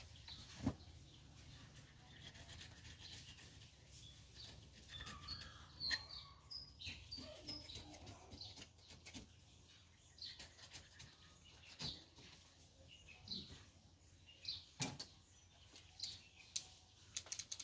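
A knife scraping and cutting at the dry, fibrous husk of a sprouted coconut: a run of short scratchy strokes with a few sharper clicks. Birds chirp faintly in the background.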